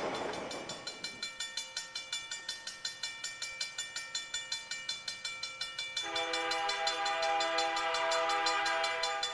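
VIA Rail F40PH-2D diesel locomotive's air horn sounding a steady chord of several notes for about three seconds, starting about six seconds in, as the passenger train approaches. Quick regular clicking, about five a second, runs underneath, and the noise of a passing train fades out in the first second.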